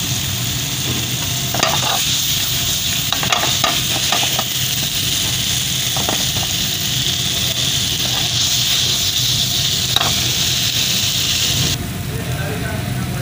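Beef and tomato sauce sizzling in a frying pan while a spatula stirs it, with occasional scrapes and knocks against the pan. The sizzle drops off abruptly near the end.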